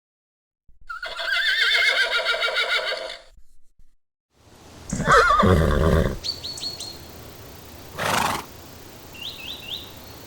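A horse whinnying: a long wavering neigh, then a second, lower call a second or so later. After it come faint outdoor background noise with birds chirping, and a short puff of noise near the end.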